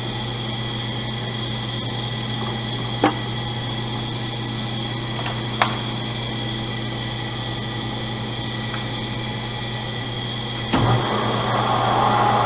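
Enco 110-1340 metal lathe running steadily with a constant motor hum and a few sharp clicks. Near the end a louder, rougher noise joins and keeps building.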